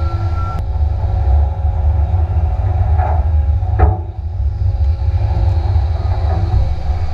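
Industrial twin ram baler running: a loud, steady low drone with a hum from its 37 kW hydraulic drive, broken by a few sharp knocks, the strongest just before four seconds in.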